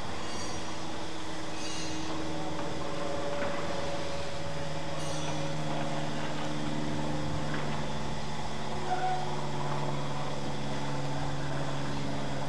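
A steam locomotive being turned on a railway turntable: a steady mechanical hum with tones that shift over time, and a few faint high squeaks in the first half.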